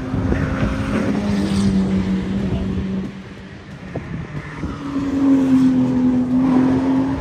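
Race cars going past one after another. One engine note holds steady for about the first three seconds, there is a short lull, then a second car's engine note comes through from about the middle.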